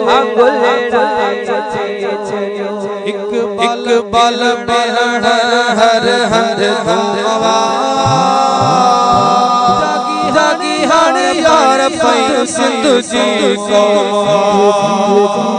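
Voices singing a Sindhi devotional chant (molood) over a steady low tone.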